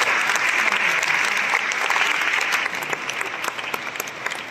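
Audience applauding. The clapping is dense for the first two and a half seconds or so, then thins out into scattered separate claps.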